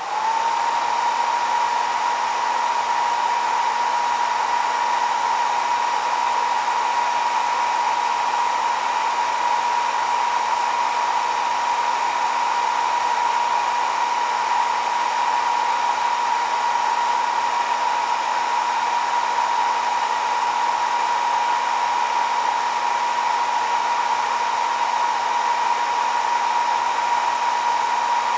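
Hair dryer running on its fast setting: a steady rush of air with a constant high motor whine.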